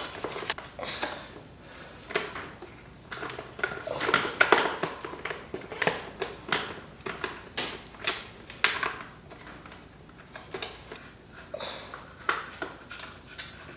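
Irregular clicks and knocks of hand tools, bolts and plastic as a front fender is bolted onto a pit bike.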